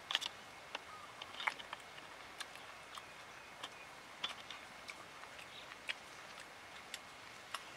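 Scattered sharp clicks and small snaps, irregularly spaced at about one or two a second, over a faint steady hiss.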